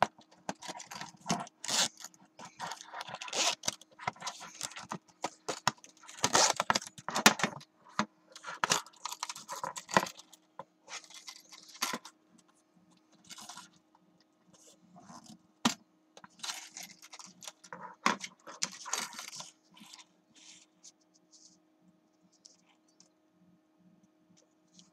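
Hands handling a tinplate CD carry case close to the microphone: a busy run of metallic clicks, clinks and rattles with rustling. It thins out after about twelve seconds and dies away near the end.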